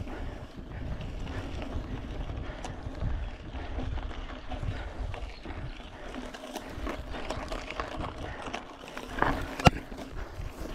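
Mountain bike riding over a bumpy dirt trail: the tyres rumble on the ground and the bike rattles and clicks over the bumps, with one sharp knock near the end.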